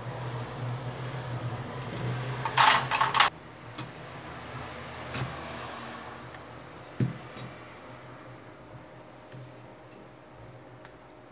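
Small plastic and metal parts of a Xiaomi Mi 8 being handled during disassembly: a short, loud clatter of rattling clicks about three seconds in, then single clicks near the middle, over a steady low hum.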